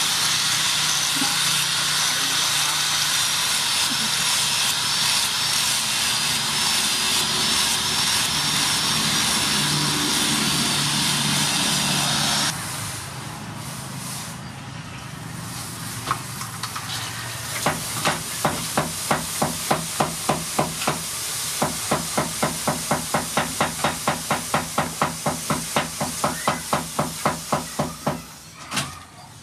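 Power sander with a disc pad running steadily against the steel hammer head, with a slight wavering whine; it cuts off suddenly about twelve seconds in. After a short quieter stretch comes a long run of regular sharp clicks, about two and then three a second.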